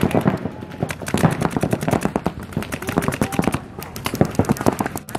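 Paintball markers firing rapid strings of shots, the pops coming thick and overlapping, with a couple of brief lulls.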